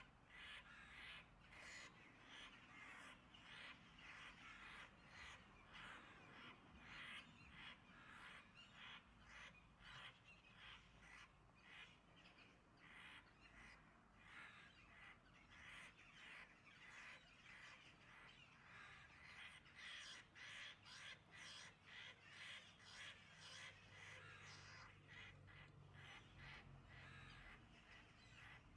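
Crow cawing over and over in a fast run of short calls, about two or three a second, the distress calls of a crow pinned down by a hawk.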